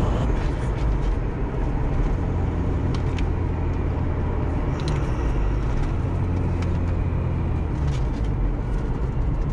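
Mazda RX-8's rotary engine and road noise heard from inside the cabin while driving, a steady low drone whose engine note shifts slightly as the manual gearbox is shifted.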